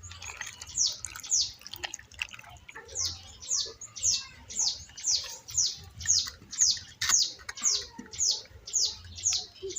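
A bird calling a steady series of short, high chirps, each falling in pitch, about two a second, with a brief pause about two seconds in.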